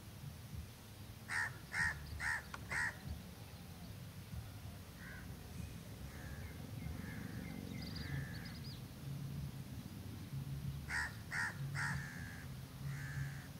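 A bird giving harsh cawing calls: four in quick succession about a second in, then three more near the end. Fainter, thinner bird calls come in between, over a low steady background rumble.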